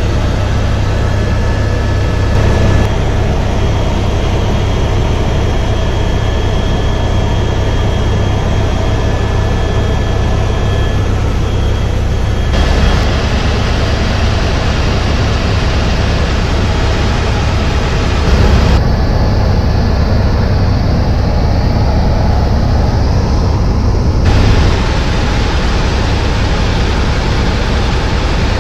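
Helicopter in flight heard from inside the cabin: steady, loud rotor and engine noise, a deep rumble with a faint high whine. The sound changes abruptly a few times.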